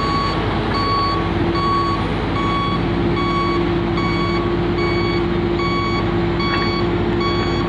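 Heavy excavator's diesel engine running with a steady drone, while a warning beeper sounds a short, high beep about three times every two seconds, the motion alarm of heavy mining machinery.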